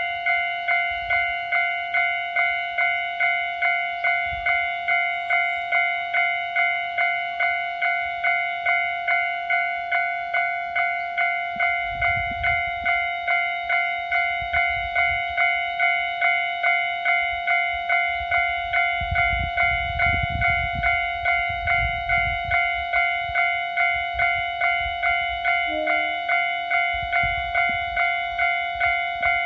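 Japanese railway level-crossing warning bell ringing steadily, an electronic clanging tone repeated about twice a second, with low rumbles now and then underneath.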